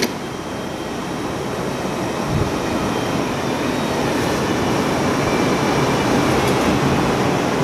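A steady rumbling hiss with a low hum, growing a little louder toward the end.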